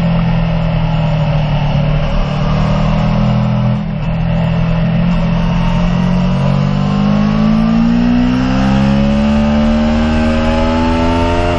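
Aprilia Tuono V4 1100 Factory's 65-degree V4 engine heard from on the bike, running steadily at part throttle with a brief dip about four seconds in, then rising steadily in pitch from about seven seconds in as the bike accelerates through a gear.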